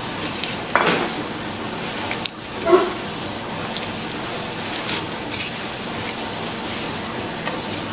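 Pot of broth heating on a gas stove burner, a steady hiss and light bubbling, with a few short crinkles and taps as chicken bouillon cubes are unwrapped and dropped in.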